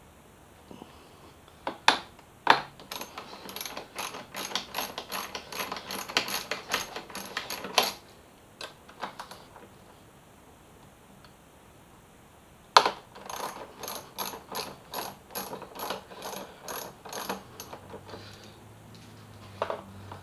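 Socket ratchet clicking as it loosens a bolt, in two runs of quick, even clicks at about four a second, each starting with a sharp knock, with a pause of several seconds between them.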